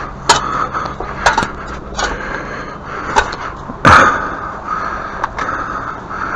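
A digging tool striking into soil and a buried tree root: about seven irregular hits, the loudest about four seconds in.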